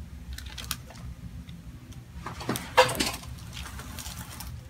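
Chiropractic spinal adjustment: a rustle of movement, then a single sharp crack of the joint releasing about three seconds in, over a low steady hum.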